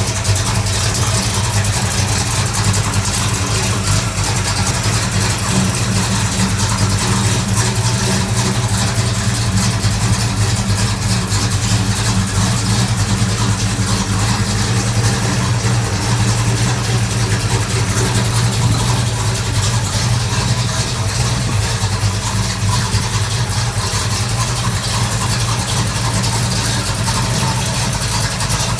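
Small-block Chevrolet V8 on a bare rolling chassis, exhausting through tube headers, idling steadily.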